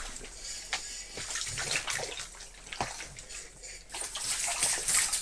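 A loose fish flopping and splashing in shallow water on a flooded tent floor, starting about four seconds in after a few light clicks and knocks.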